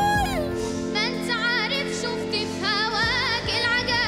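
A young girl singing, holding notes with vibrato, over a sustained instrumental accompaniment.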